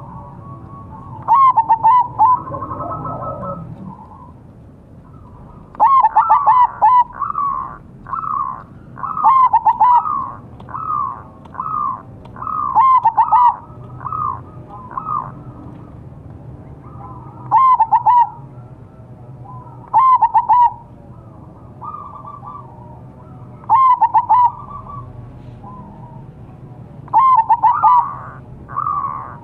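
Zebra dove (perkutut) cooing: loud phrases of quick, rolling coos every few seconds, with softer coos in between.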